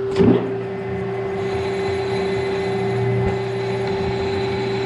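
Metal lathe engaged to turn a steel bushing: a sharp clunk about a fifth of a second in, then the spindle and three-jaw chuck run up and keep turning steadily over the motor's hum, brighter from about a second and a half in.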